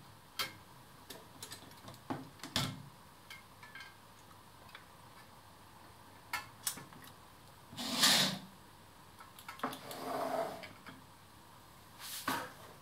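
Metal model steam locomotive being handled and turned over on a cloth: scattered light clicks and knocks, with a louder rustling scrape about eight seconds in and softer rustles after it.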